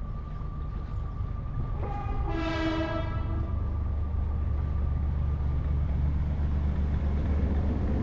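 A single horn blast lasting about a second and a half, starting about two seconds in, over the low steady rumble of an engine that grows louder about halfway through.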